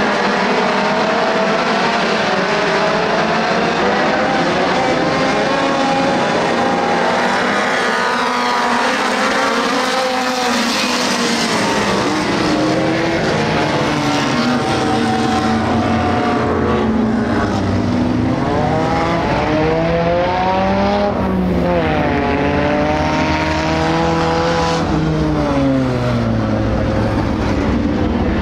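A field of compact dirt-track race cars running together at speed. Several engines rise and fall in pitch as cars accelerate and pass, growing fuller and lower in the second half.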